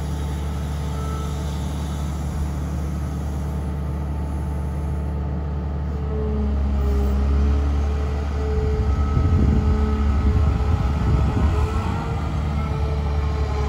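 Cat M322D material handler's diesel engine running under load, with a thin whine over the steady low hum, as the boom and stick move. It grows louder and rougher about six seconds in, then eases slightly near the end.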